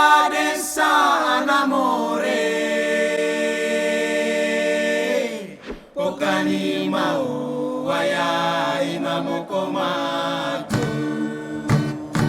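Group of voices singing a chant without instruments, in long held notes that slide in pitch. Near the end, short sharp strokes come in under the voices.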